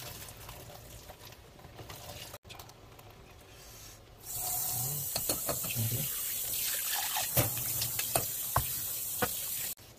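Kitchen tap running cold water onto boiled noodles in a metal mesh strainer over a stainless steel sink, rinsing them. The water comes on about four seconds in as a steady hiss, with light clinks from the strainer, and stops abruptly near the end.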